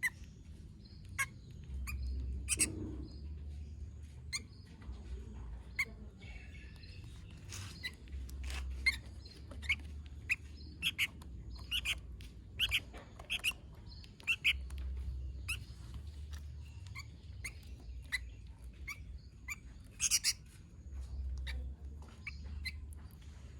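Sooty-headed bulbul (kutilang) calling in many short, sharp chirps scattered irregularly, over a low background rumble that comes and goes.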